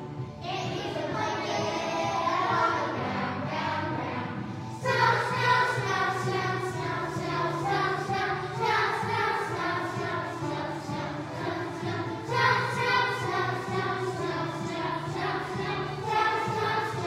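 A Christmas song with a children's choir singing over steady musical accompaniment. A louder new phrase begins about five seconds in and another about twelve seconds in.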